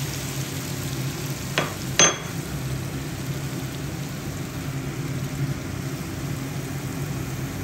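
Spiced masala frying on high heat in a steel kadai, a steady sizzle under a low hum, as a steel spatula stirs it. About a second and a half in the spatula clinks on the pan, then strikes it harder half a second later with a short metallic ring.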